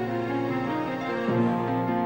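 Soft background music of held notes, with a change of chord a little over a second in.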